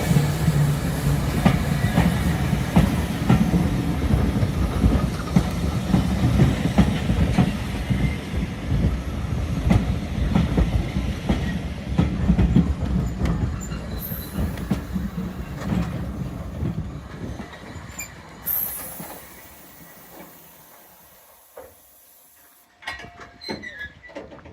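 Heritage railway train running on the track, its wheels clicking and squealing over a heavy rumble. The rumble dies away gradually over about twenty seconds, leaving a few scattered knocks near the end.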